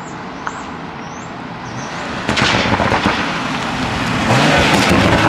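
Tuned Toyota GR Supra (MKV) approaching and pulling up close, its engine and exhaust growing louder with a crackling that sets in about two seconds in, loudest near the end.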